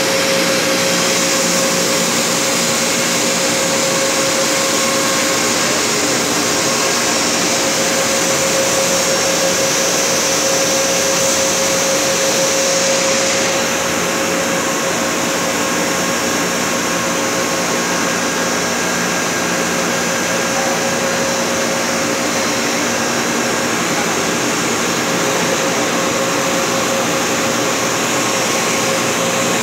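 Plastic granule extruder line running: a loud, steady mechanical drone from its motor, gearbox and cooling fan, with a constant hum under an even hiss. The hiss eases slightly about halfway through.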